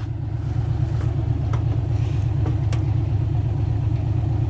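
Heavy diesel truck engine running steadily with a low, rapidly pulsing drone, and a few faint clicks.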